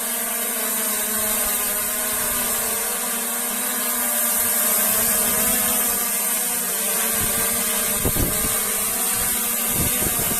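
DJI Mavic Air 2 quadcopter's propellers and motors whirring steadily in flight, the pitch wavering slightly as the drone adjusts. Wind gusts buffet the microphone near the end.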